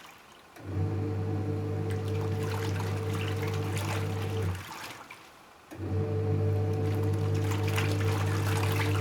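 Panasonic NA-W77FCW1 twin-tub washing machine's wash tub agitating: the motor hums steadily with water sloshing for about four seconds, stops for about a second halfway through, then starts again as the pulsator reverses direction.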